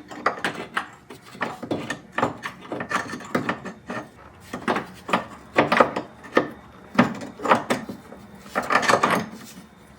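Irregular metallic clunks, knocks and scraping as a new engine mount is worked into its seat on the engine bracket.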